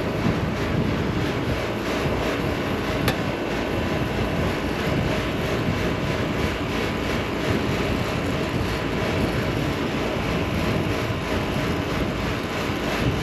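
Brazing torch burning steadily with a dense rushing noise as it heats copper refrigerant line joints at an AC condensing unit's service valves for brazing. One sharp click about three seconds in.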